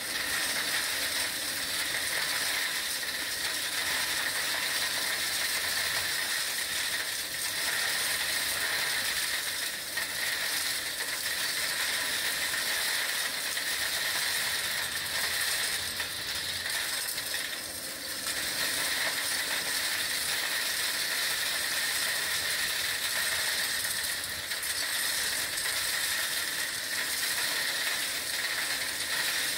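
Kärcher industrial vacuum cleaner running steadily while sucking up gravel and building rubble, small stones clattering up the wand and hose.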